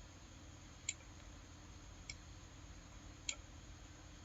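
Three faint, sharp computer mouse clicks a little over a second apart, over a low steady room hum.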